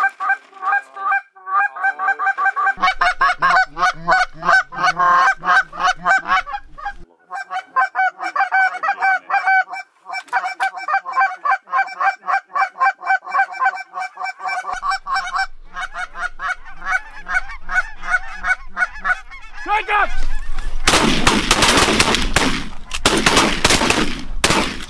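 Canada geese honking, many short calls in quick succession, as a flock comes in to the decoys. Near the end, three loud shotgun blasts a second or two apart.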